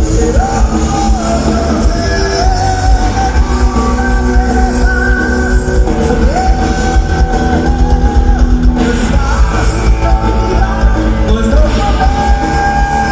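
Live rock band playing at full volume, a singer holding long, slightly wavering notes over heavy bass.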